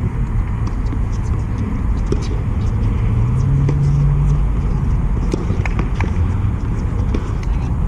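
Steady low outdoor rumble on the camera microphone, with faint distant voices and a few sharp tennis-ball knocks from the courts.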